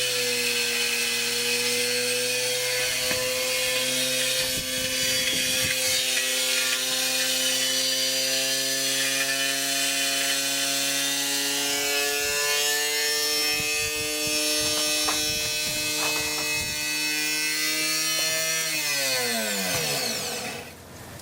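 Washing machine spinning at speed: a steady motor whine that creeps slowly up in pitch, then winds down with a falling pitch near the end.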